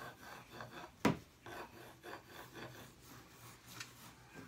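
Pencil scratching across a drawing board in short, repeated sketching strokes, with one sharp tap about a second in.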